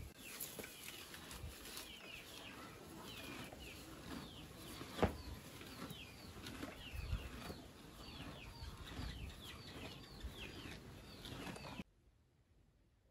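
Chicks peeping: many short, high peeps, each falling in pitch, over scattered knocks and rustling. A sharp knock comes about five seconds in, and the sound cuts off abruptly near the end.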